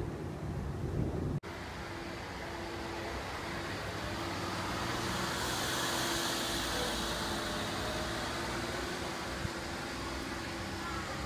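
Street traffic: a vehicle passing close by, its noise swelling to a peak about halfway through and fading again, over a steady engine hum. Before it, about a second of low rumble that cuts off abruptly.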